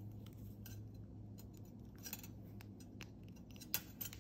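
Side cutters snipping 18-gauge jewellery wire: a few faint clicks, then one sharp snip near the end.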